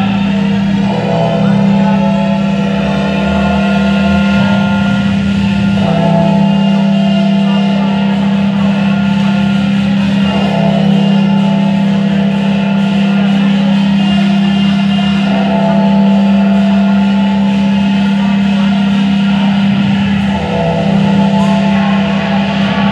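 Music playing over an ice arena's sound system, with a steady low drone beneath changing sustained chords.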